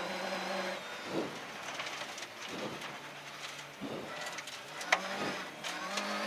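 Rally car engine heard from inside the cabin, its revs falling and rising in steps through gear changes for a tight corner, over a steady rumble of tyres on a loose track. Several knocks cut through, the sharpest about five seconds in.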